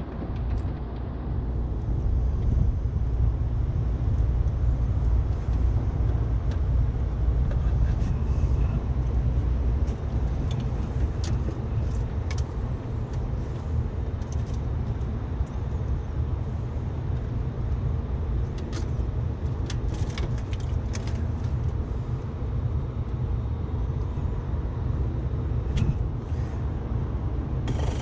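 Rooftop air-conditioning unit's compressor running: a steady low hum and rumble, with a few small clicks and rattles scattered through the middle.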